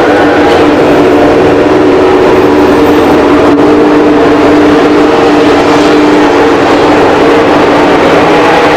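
MotoGP race bike engine running at high revs, its pitch held steady throughout.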